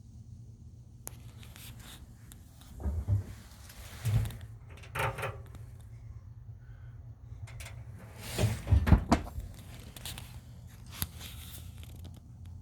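Green Mountain Grill Jim Bowie pellet grill running with a steady low hum, broken by several loud, irregular clunks and knocks, the loudest near the end. It is the very loud noise the owner blames on the auger motor after reassembling the auger.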